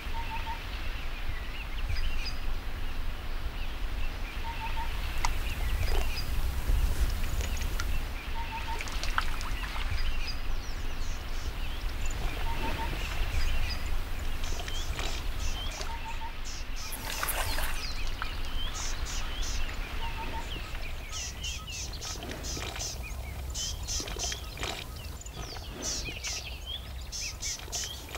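Outdoor ambience: birds chirping, with one bird repeating a short double note every few seconds, over a steady low wind rumble. A run of rapid high clicks comes in during the second half.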